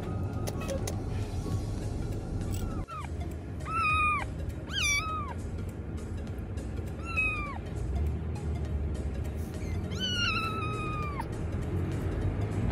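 A young tabby kitten meowing five times, each high cry rising and then falling, the last one the longest. Under the cries is the steady low rumble of the car.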